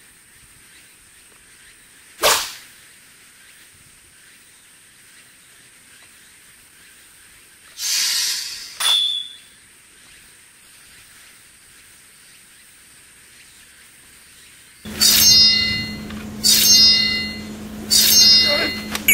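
Sword-fight sound effects: a single sharp hit about two seconds in and two short swishes around the middle, then three loud ringing metallic sword clashes over a steady low tone in the last few seconds.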